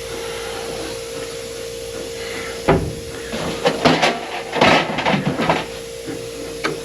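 Window channel felt being worked into a car door: a run of knocks and rubbing starting a few seconds in, over a steady hum.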